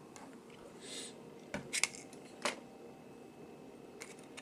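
A few light clicks and a soft scrape from small metal parts of a Super Takumar lens being handled and fitted together by hand.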